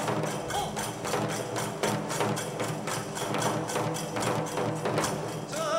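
Kagura ensemble of a large rope-tensioned barrel drum (taiko) and small hand cymbals (tebiragane) beaten in a fast, steady rhythm, several strokes a second. A voice begins to chant right at the end.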